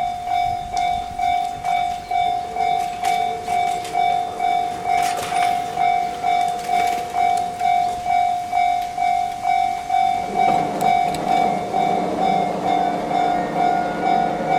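Japanese railroad-crossing warning bell ringing steadily, about two electronic dings a second. From about ten seconds in, a passing train adds a loud hum under the bell.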